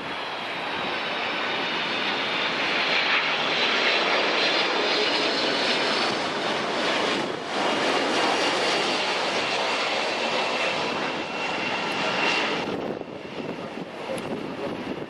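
Boeing 767-300ER jet airliner on final approach passing close by: the turbofan engines' roar with a high whine that slides slightly down in pitch, swelling through the middle and falling away near the end.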